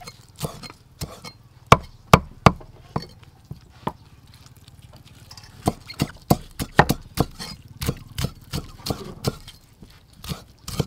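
Cleaver chopping wood ear mushrooms on a thick wooden chopping board: sharp, irregular knocks of the blade into the board, with a pause of about two seconds in the middle.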